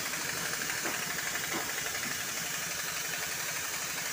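An engine or motor running steadily: a dense, even mechanical noise with a fine rapid pulse underneath.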